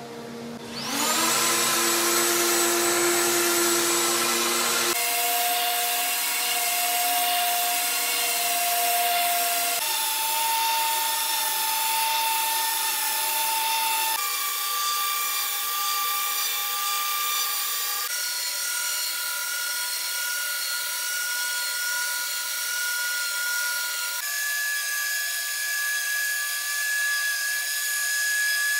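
Random orbital sander with an 80-grit disc, spinning up about a second in and then sanding the face of an end-grain hardwood cutting board to smooth it after router flattening. Its steady whine steps up in pitch several times.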